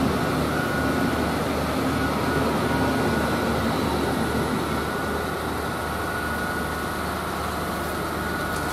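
Hydraulic loader crane working under load, its engine-driven pump running with a steady drone and a thin high whine as it lowers a heavy load.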